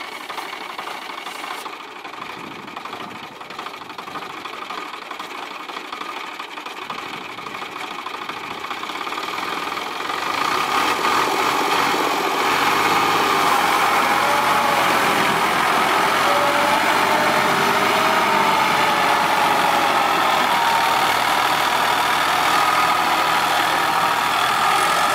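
CHAMP YTO454 tractor's diesel engine running, then revving up about ten seconds in and holding at high revs under heavy load as the tractor, stuck in mud, tries to drive itself out.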